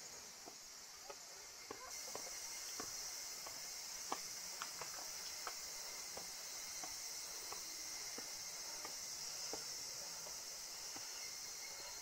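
A chorus of cicadas shrilling steadily, growing louder about two seconds in. Scattered footsteps sound on stone steps through the first half.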